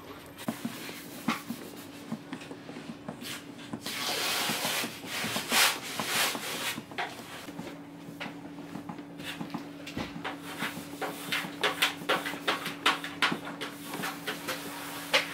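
A plastic squeegee, and then a small rubber hand roller, rubbing and pressing vinyl decals onto a train's interior wall panel: many short scraping and rubbing strokes, coming quickly and irregularly in the second half. A steady low hum runs underneath from about halfway.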